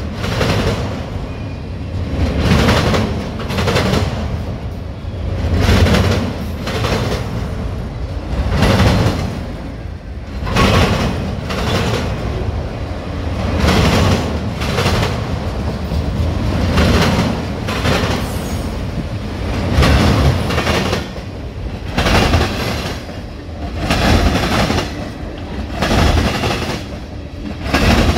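A freight train's cars rolling past at close range: a steady rumble of steel wheels on rail, with clickety-clack as wheel sets cross rail joints every second or two and the loudness swelling with each passing truck. Autorack cars go by, then tank cars.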